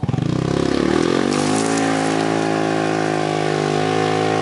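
Yamaha Rhino side-by-side's single-cylinder engine revving hard under load as it climbs a steep dirt bank. The revs rise over the first second, then hold at a steady high pitch.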